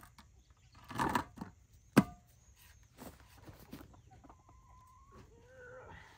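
A plastic poultry waterer being handled: a clatter about a second in, then a sharp hard knock at two seconds, as the water inside is frozen solid. Hens call a couple of times near the end.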